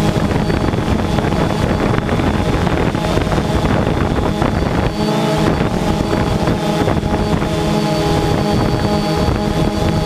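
Multirotor drone's electric motors and propellers whirring with a steady hum, heard from the drone itself. Wind rushes over the microphone, heavier in the first half and partly covering the hum.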